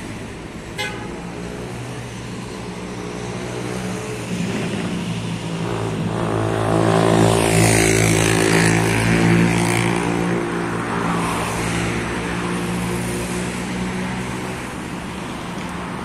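Heavy diesel engine of a Caterpillar motor grader running steadily. It grows louder from about six seconds in and is loudest around eight to ten seconds, as the machine comes close.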